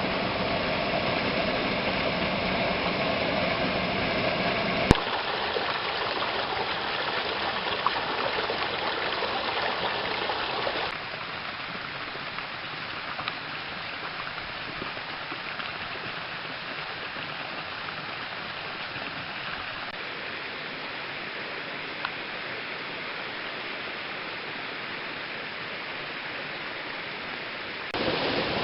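Mountain stream rushing over rocks: a steady hiss of running water that shifts in loudness and tone abruptly about 5 and 11 seconds in, and a little before the end.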